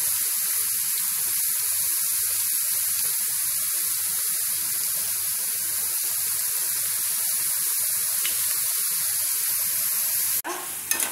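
Thin potato slices deep-frying in oil on high heat in an iron kadhai: a steady, even sizzle that stops abruptly near the end.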